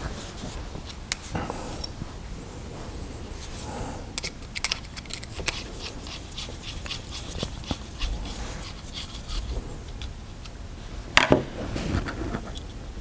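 Light clicks, taps and rubbing of a hex key and small metal air-rifle parts as the check-valve retainer in an FX Wildcat's air tube is unscrewed and handled, with a run of quick clicks about four to six seconds in and a louder knock near eleven seconds.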